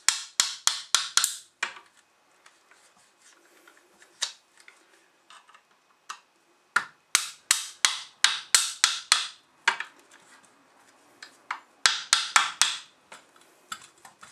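Hammer tapping a screwdriver wedged between a glued PVC pipe and its ABS fitting socket. The taps come in three quick bursts of six to nine sharp strikes each, with pauses between. Each snap means the glued pipe piece has moved a little farther out of the socket.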